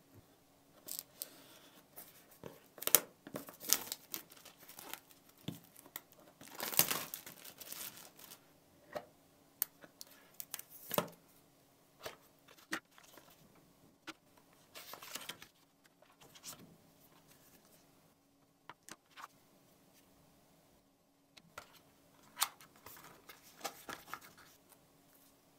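Smartphone retail packaging being opened by hand: plastic shrink-wrap tearing and crinkling, and the cardboard box and inner tray sliding and tapping, in a run of short scrapes and clicks. The longest and loudest tear comes about seven seconds in.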